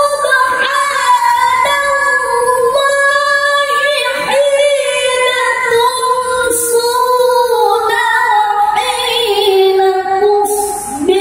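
A male qari chanting Quran recitation (tilawah) in the melodic mujawwad style into a microphone. Long, ornamented notes are held high, gliding down in pitch with a wavering vibrato near the end. A short break about ten and a half seconds in starts a new phrase.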